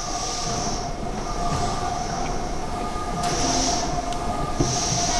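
Odakyu 3000-series electric train standing at an underground platform: a steady whine from its onboard equipment, with a high hiss that swells and fades every second or two.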